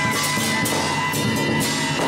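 Lion-dance percussion playing: a large red barrel drum beaten with sticks and large hand cymbals clashing about twice a second, the cymbals ringing between strokes.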